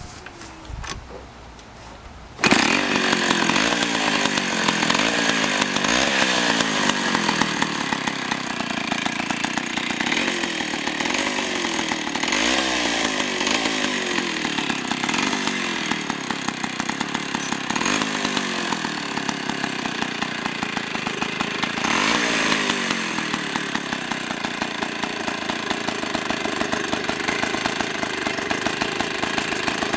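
Vintage IEL HA/HB two-stroke chainsaw with a float-bowl carburettor starting up about two seconds in and running, its pitch rising and falling again and again as it is revved. It shuts off right at the end.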